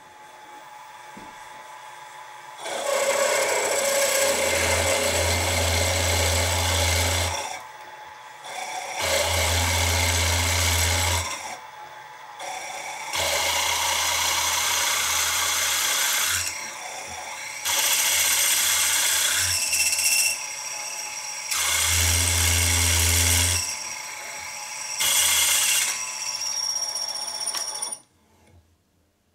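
Sieg SX2P mini mill drilling out a hole in a crank blank with a twist drill, the 23/64 in opening-up drill after a 6 mm stub drill pilot. The spindle motor runs under about six stretches of cutting noise a few seconds each, with short quieter gaps between as the drill is pecked in and backed out to clear chips. It stops shortly before the end.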